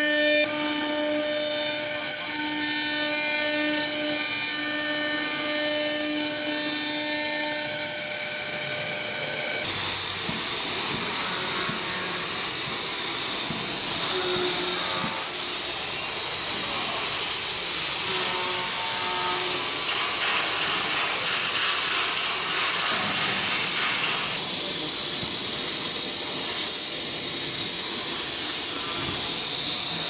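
Spindle of a Blue Elephant ELE1325ATC CNC router running with a steady whine as it cuts lock holes in a wooden door panel. About ten seconds in the whine stops, and a steady hiss of machine air noise carries on.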